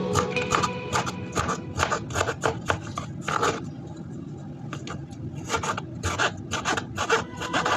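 Repeated short scraping strokes of kitchen food preparation, a few a second, pausing for a couple of seconds in the middle before starting again, with faint background music.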